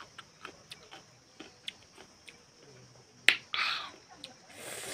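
Someone eating a mouthful of rice with homemade radish pickle: a run of small clicks and lip smacks, a sharp tap a little over three seconds in followed by a short hiss, and another short hiss near the end.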